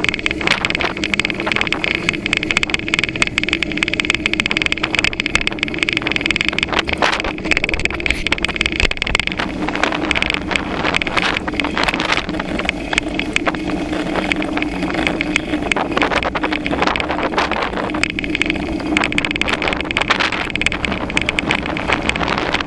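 Bicycle riding on a paved path, heard from a handlebar-mounted camera: a steady rushing noise with wind buffeting the microphone, and frequent small rattles and knocks from the bike over the pavement.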